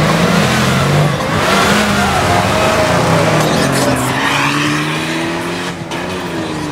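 A small classic saloon car's engine revving hard as it pulls away, with a burst of tyre squeal, then the pitch climbing slowly as it accelerates off.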